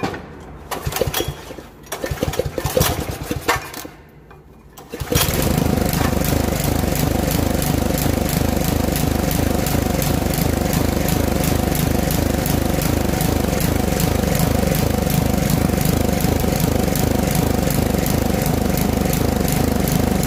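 Small petrol engine of a Poulan Pro walk-behind tiller: after a few seconds of clattering, it catches about five seconds in and runs steadily. The mechanic blames its stumbling at high speed on a clogged small carburettor jet.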